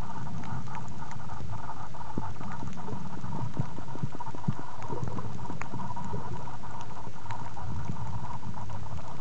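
Muffled underwater noise picked up by a compact camera sealed in a soft plastic waterproof pouch: a steady low rumble with many scattered small clicks and crackles.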